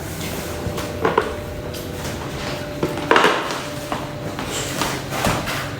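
Scattered knocks and clatter of hard objects being handled, with three louder knocks about a second in, three seconds in and near the end.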